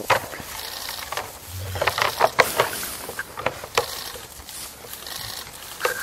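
Two bull moose sparring, their antlers knocking and clacking together in irregular bursts, thickest about two seconds in.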